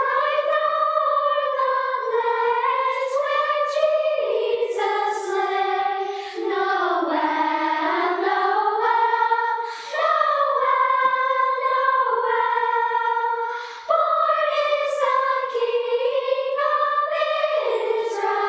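Youth choir singing a slow, sustained melody in unison with no audible accompaniment, phrases breaking briefly for breaths about every four seconds.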